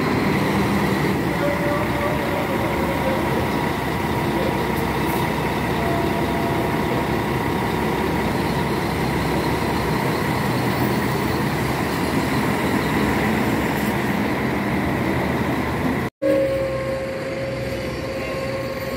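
Diesel engine of a double-decker coach running close by: a loud, steady rumble with a faint whine over it. The sound cuts out for an instant about three-quarters of the way through, then a second double-decker coach's engine runs on.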